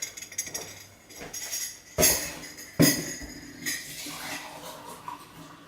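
Clinking and jingling of kitchen containers and utensils being handled, with two sharper knocks about two and three seconds in.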